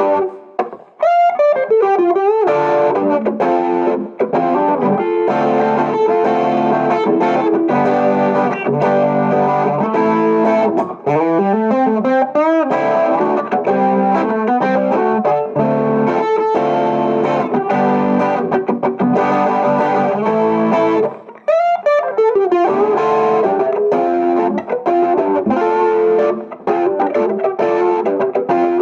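Donner headless travel electric guitar played through effects with some distortion: sustained chords and melody, with sliding notes about a second in, near the middle and about two-thirds of the way through.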